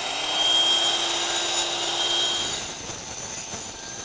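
Small electric concrete saw on a pivot arm, with its dust vacuum attached, running and cutting a circle into a concrete slab. Its pitch rises briefly near the start, then holds steady; about two and a half seconds in the sound drops and turns lower.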